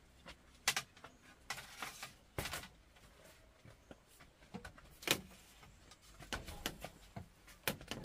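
Irregular knocks, clatters and rustling from electrical cable being pulled and handled against bamboo poles and woven bamboo walls. There are about a dozen sharp sounds, with a cluster between about six and seven seconds in.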